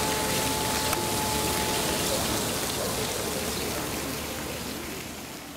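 Steady rushing hiss of water, fading out over the second half.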